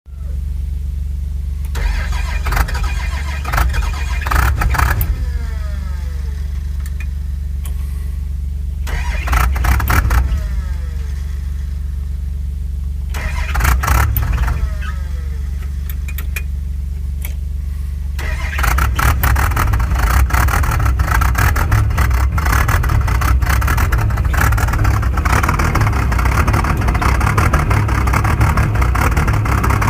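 Excavator diesel engine running steadily, with three short louder surges, each followed by a falling whine; about two-thirds through it rises to a louder, steady working pitch.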